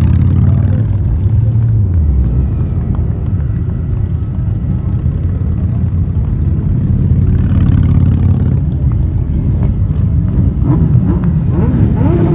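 Many motorcycles, a lot of them cruisers, riding past slowly in a column with their engines running together. A throttle blip falls away about a second in, and bikes rev up and down near the end.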